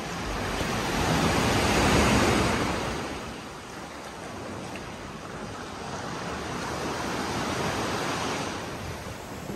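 Sea swell surging and washing inside a sea cave, a steady rush that swells up about two seconds in and again near the end.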